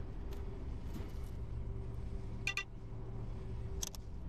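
A vehicle engine idling steadily, with two short clicks from a phone camera shutter, about two and a half and four seconds in.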